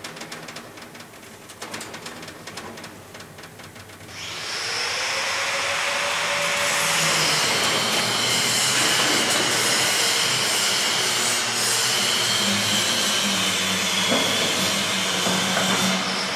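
A power tool worked inside a steam locomotive's smokebox. There are light knocks at first. About four seconds in the tool starts with a short rising whine, then runs on as a loud, steady hiss.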